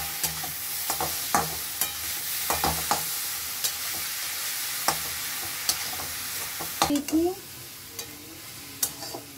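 Grated carrot and capsicum sizzling in hot oil in a metal kadhai, stirred with a flat steel spatula that scrapes and clicks against the pan. The sizzle gets quieter about seven seconds in.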